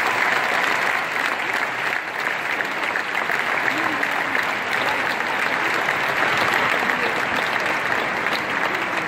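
A large audience applauding: dense, steady clapping with a few voices in the crowd.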